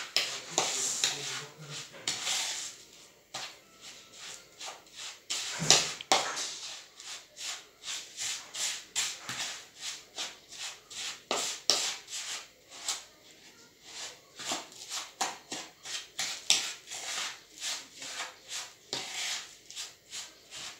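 Spoon stirring and scraping through a mixture of millet, sugar and melted butter in a plastic bowl: short irregular scrapes, about two a second.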